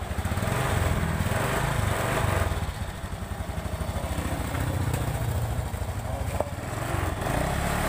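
Honda Revo 110's single-cylinder four-stroke engine running at idle, its speed rising and falling slightly while the carburettor air screw is adjusted to cure the exhaust popping on throttle release.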